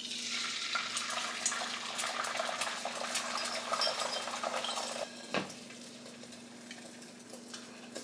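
Beaten eggs poured into a hot oiled skillet, sizzling and crackling loudly as they hit the pan. The sizzle eases off after about five seconds, with a single knock, and a quieter sizzle carries on.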